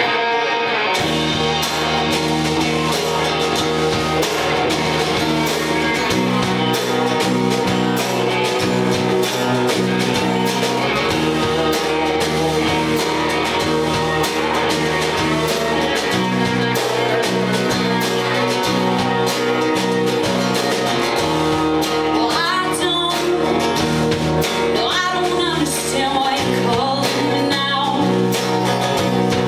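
Live band playing a guitar-led song, with a bass line that moves every few seconds under a loud, steady mix.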